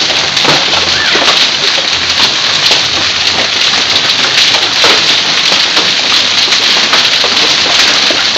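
Hail and heavy rain falling hard on grass, pavement and vehicles, a loud, steady downpour.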